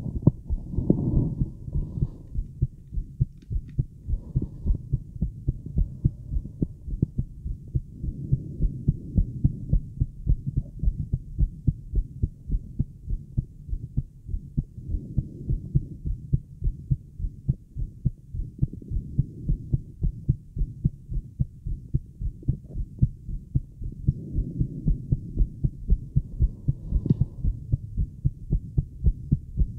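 A woman's own fast heartbeat heard through an acoustic Littmann stethoscope with a microphone on it: a quick, regular train of low thumps, with a few slow swells of low rushing sound.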